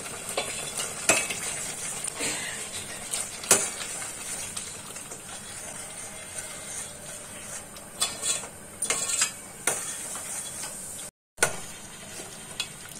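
A steel ladle stirs a simmering leafy curry in a stainless steel pot, clinking and scraping against the pot's side now and then, over a steady sizzle from the pot on high heat. It begins with boiled peas and peanuts being tipped in from a steel bowl.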